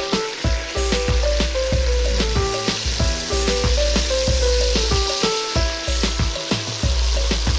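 Chunks of beef sizzling and crackling as they fry in hot oil in an aluminium pot, stirred with a spoon. Background music with a repeating melody and deep bass plays throughout.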